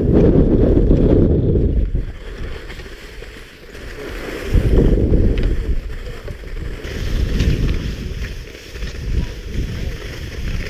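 Wind buffeting the GoPro's microphone as a skier glides downhill: loud low gusts in the first two seconds and again about halfway through. Between and after them, the quieter hiss and scrape of skis on packed snow.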